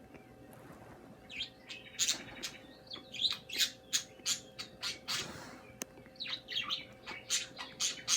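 Pet birds chirping: a rapid run of short, sharp, high calls that begins about a second in, with a brief rustle about five seconds in.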